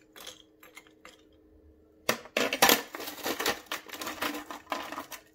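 A metal spoon and glassware clinking: a few light clicks, then about three seconds of busy clinking and clattering from about two seconds in.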